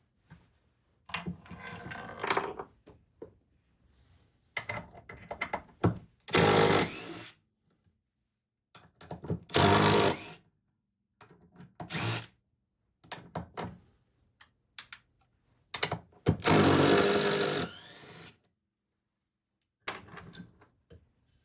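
Power drill running in short bursts, starting and stopping about half a dozen times, with the longest run of about two seconds near the end.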